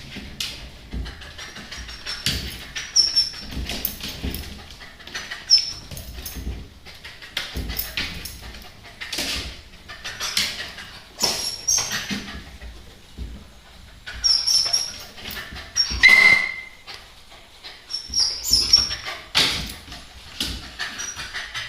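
A dog making noise: many short clicks and taps, mixed with brief high squeaks, with one louder burst about two-thirds of the way through.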